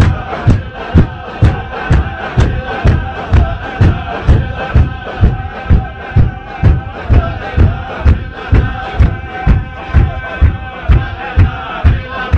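Loud, heavy beats about two a second, with a held melody and a large crowd chanting over them.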